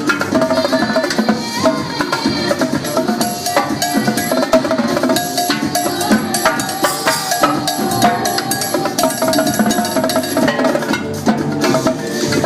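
Live drumming with fast, dense strokes played over electronic dance music.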